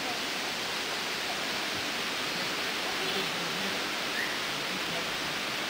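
Steady, even rushing noise, with faint voices now and then.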